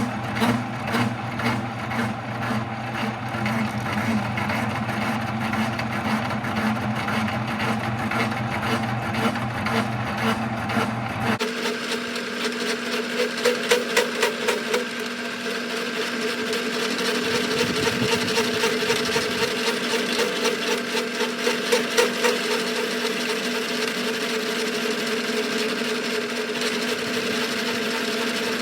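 Metal lathe turning a PTO yoke while a button cutter takes the top off a hard weld bead, the cut running with chatter. The steady pulsing tone changes abruptly about eleven seconds in.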